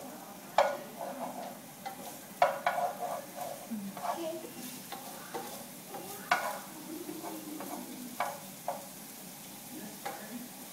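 A wooden spoon stirring and scraping food in a frying pan, with several sharp knocks of the spoon against the pan, over the sizzle of frying.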